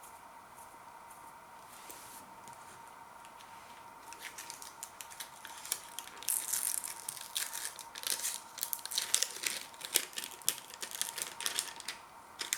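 Plastic packaging being handled and torn open, crinkling and crackling with many small clicks. It begins about four seconds in, after a quiet start with a faint steady whine underneath, and the plastic is likely the tub or film of the Tex Mex dip pots.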